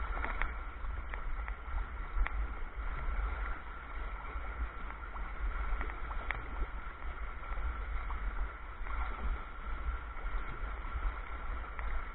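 Water rushing and gurgling along a sea kayak's hull as it moves through choppy water, with a steady low rumble underneath.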